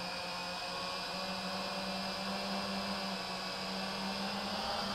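FPV quadcopter's electric motors and propellers humming at a near-constant pitch, with a steady hiss over it, heard from the camera on board the drone.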